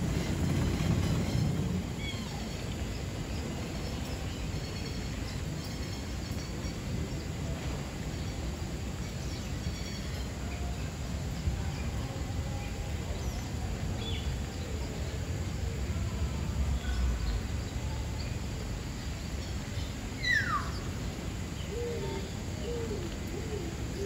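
Birds calling in a tropical aviary over a steady low rumble of outdoor background noise: scattered faint chirps, one clear whistle sliding downward about twenty seconds in, then a short run of lower repeated calls near the end.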